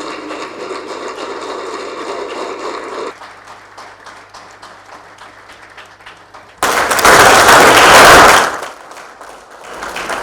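Audience applauding, breaking off about three seconds in. About six and a half seconds in comes a very loud burst of noise lasting about two seconds.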